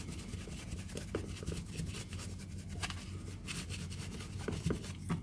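Small brush scrubbing flux cleaner off a circuit board through a paper towel: a quick run of short scratchy brushing strokes.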